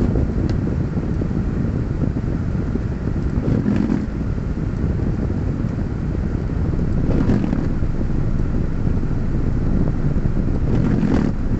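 Car engine idling, heard inside the cabin as a steady low rumble. Three brief louder sounds stand out over it, a few seconds apart.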